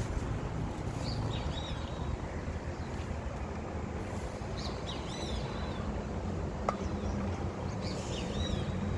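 Outdoor ambience: a bird chirps in short calls three times over a steady low rumble.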